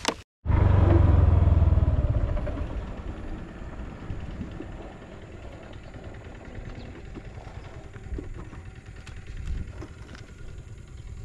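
Motorbike engine running, louder for the first couple of seconds and falling in pitch as the bike slows, then idling quietly.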